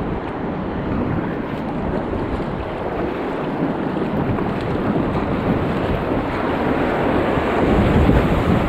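Rushing river rapids, a steady roar of whitewater that grows louder as the kayak drops into the churning water near the end.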